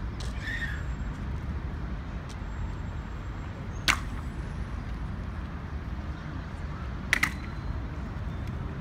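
Evzone guards' hobnailed tsarouchi clogs stamping on marble paving during their slow ceremonial march: sharp single strikes several seconds apart, the loudest about four seconds in and a quick double strike near seven seconds. A steady low city rumble lies underneath.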